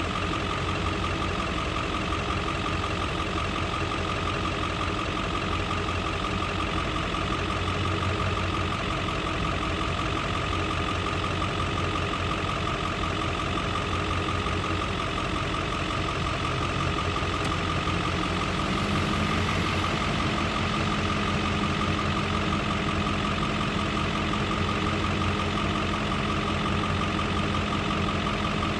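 Heavy farm machinery engine running steadily with a constant high whine; about two-thirds of the way through the engine picks up speed slightly and holds there.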